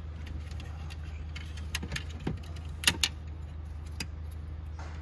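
Carbon-fibre centre console trim being handled and pressed into place by hand: scattered light clicks and taps of the trim against the console, the loudest a sharp double click about three seconds in, over a steady low hum.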